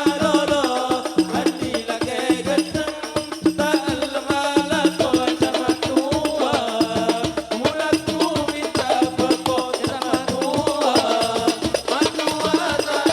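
Gambus band music: an instrumental passage with a quick, steady percussion beat under a winding melody.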